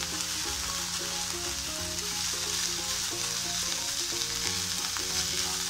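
Shredded chicken and onions sizzling in butter, soy sauce and white vinegar in a nonstick frying pan, stirred and scraped with a spatula in a steady sizzle.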